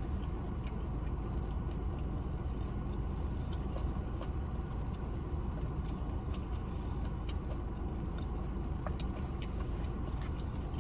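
Steady heavy rain with a constant low rumble underneath, and a few small scattered clicks.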